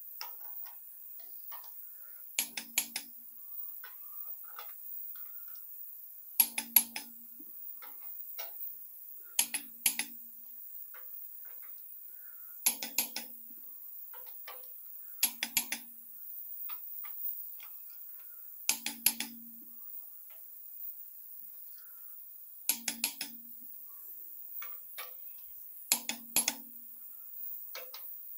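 Click-type torque wrench clicking as each head bolt of a Ford 302 V8 reaches its final torque, in a double-click check. A quick group of two or three sharp clicks comes every three to four seconds, bolt after bolt, eight times, with faint ratchet ticks between.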